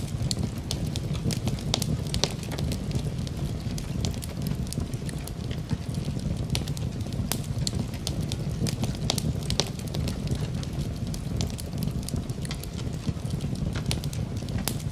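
Wood fire burning in a fireplace, crackling with many irregular sharp pops over a steady low rush of flames.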